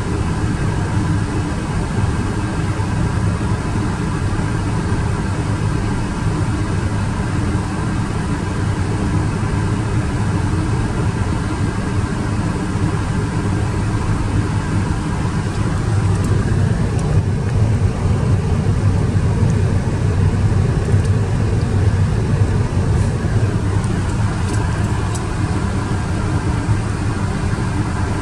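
Steady low rumble of an Airbus A380 in flight, engines and rushing air heard as cabin noise, with a faint steady whine over it; it swells slightly a little past the middle.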